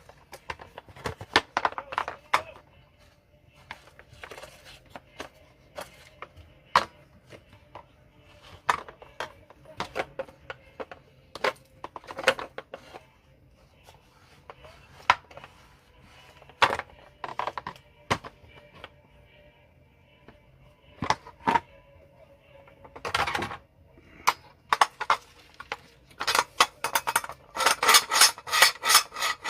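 Scattered metallic clicks and clinks of parts being handled and worked on while repairing a pressure rice cooker's lid-locking mechanism. In the last few seconds they give way to a quick run of scraping strokes, about four a second.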